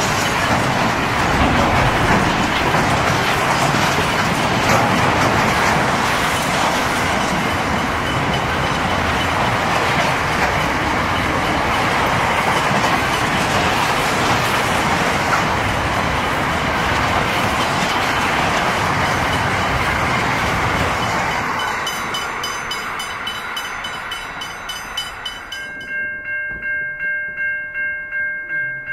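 A long intermodal freight train's container wagons rolling past, their wheels clattering over the rail joints. After about 22 seconds the rumble fades as the tail passes, leaving a regular pulsing rhythm, and a few seconds before the end a steady chord of several tones, typical of a locomotive horn, sounds.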